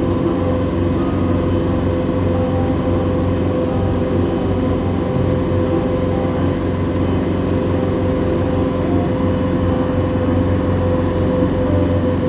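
Water taxi's engine running steadily under way, heard on board as a loud low drone with a constant hum.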